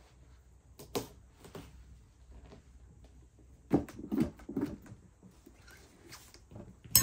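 A kitchen knife cutting into a pumpkin's rind: scattered knocks and scrapes, a busy cluster about four seconds in, and a sharp knock near the end.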